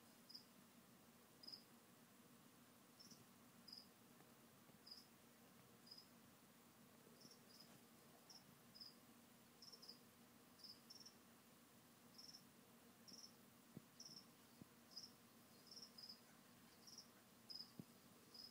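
A cricket chirping faintly: short high chirps, about one or two a second at an uneven pace, over a faint steady low hum.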